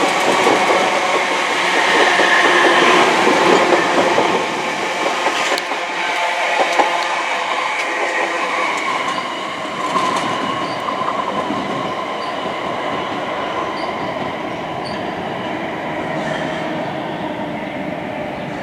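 Electric passenger train running past on the tracks below: wheel and rail noise with steady whining tones and a few clicks over the rail joints, slowly fading as it moves away.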